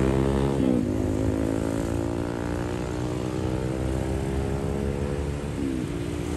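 Street traffic with a motorbike engine running close by, its pitch dipping briefly about a second in and again near the end.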